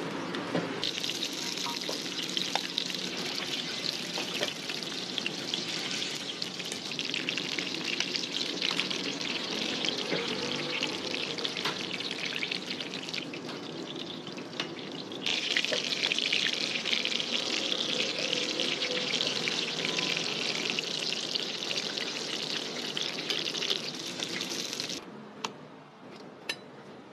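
Bread pastries deep-frying in a large wok of hot oil: a dense, steady sizzling hiss that gets louder about halfway through, then cuts off near the end, leaving a few light clicks.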